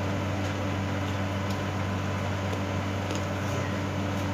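A steady low mechanical hum runs throughout, with a few faint soft clicks of chewing and of fingers tearing grilled pork belly.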